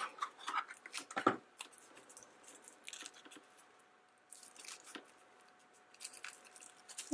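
Faint, scattered crinkling and small clicks of a foil-wrapped chocolate egg and its packaging being handled, with a couple of slightly louder crackles.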